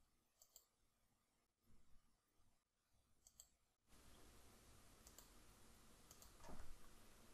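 Near silence with faint computer mouse clicks, and a louder tap of a keyboard key near the end.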